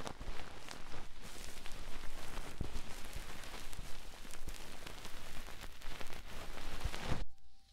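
ASMR ear-massage triggers: fast scratching and rubbing right on the microphone, a dense crackly rustle with many small knocks and clicks. It stops abruptly near the end.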